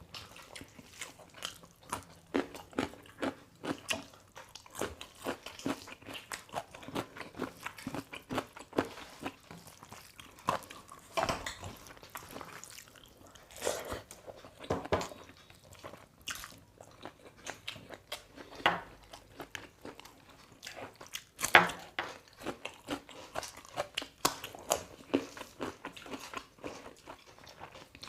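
People chewing and biting their food close to the microphone, a dense run of wet mouth clicks and small crunches, with a few louder bites scattered through. The food is chicken curry with rice.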